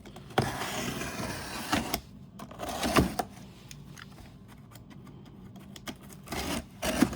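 A shoe box being opened and handled: a rustling scrape lasting about a second and a half, then scattered knocks and clicks, the sharpest about three seconds in.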